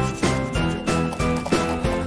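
Background music with a steady beat, about three beats a second, and a melody of held notes over it.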